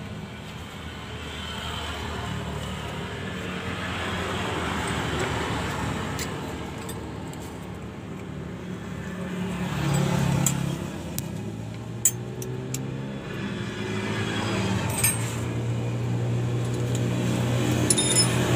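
A motor vehicle's engine running in the background, its sound swelling and fading as traffic passes, with a few sharp metallic clinks of wrenches and a removed clutch cylinder being handled.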